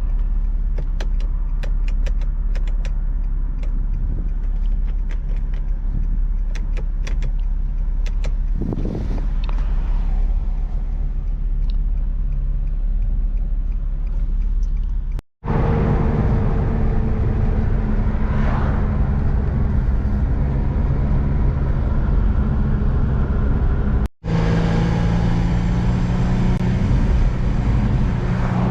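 Infiniti G35's 3.5-litre V6 engine running under way while driving, with the sound dropping out twice for an instant, once about halfway through and once near the end.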